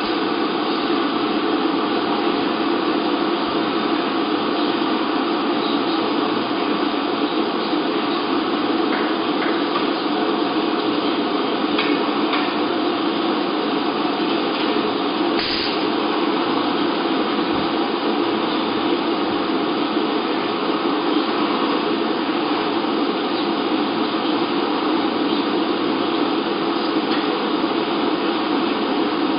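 High-frequency plastic welding machine running with a steady drone, with a few light knocks and one sharp clack about halfway through as the press and worktray are worked.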